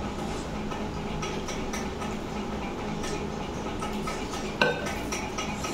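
Stainless steel bowl and plate clinking lightly as curry is tipped from the bowl onto rice, with one sharp metallic clank near the end. A steady low hum runs underneath.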